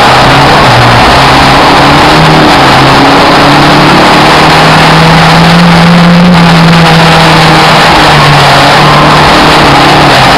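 Race car engine running hard under full throttle, its pitch climbing and dropping repeatedly as it revs and shifts, very loud and distorted.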